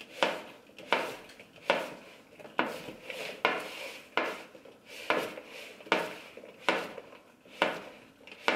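Plastic spatula stirring chopped mushrooms, peppers and tomatoes dressed in oil in a glass bowl, knocking against the glass in a regular beat a little faster than once a second, each knock followed by a short wet scrape of the vegetables.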